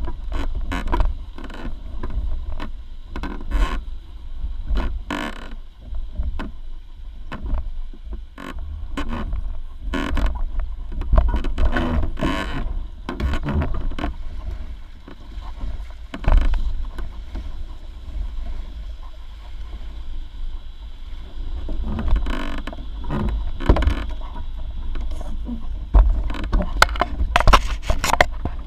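Wake waves from a large passing barge slapping and splashing against the small hull of a Laser Pico sailing dinghy: irregular knocks and splashes over a steady low rumble.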